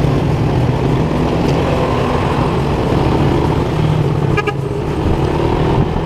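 Motorcycle engine running steadily at cruising speed, heard from on board, with road and traffic noise. A short vehicle horn toot about four and a half seconds in.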